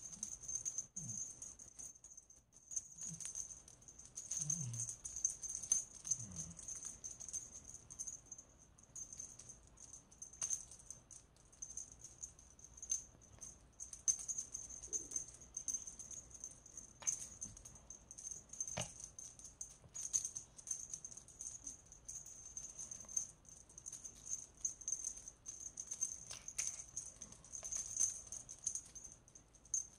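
Cat wand toy rattling and jingling as it is waved about, with a few sharp taps as the cat's paws strike at it.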